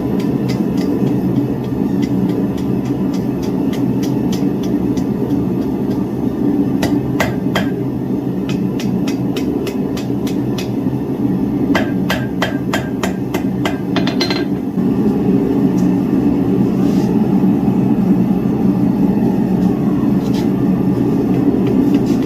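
Hammer striking steel on an anvil: scattered blows, then a quick run of strikes that stops a little past halfway, with a couple of single strikes later. A steady low rumbling noise runs underneath.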